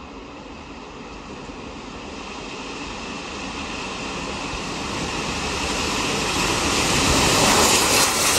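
British Railways Standard Class 7 steam locomotive 70000 Britannia running under steam with its train, a rushing, rumbling noise that grows steadily louder as it approaches and is loudest near the end as it comes level.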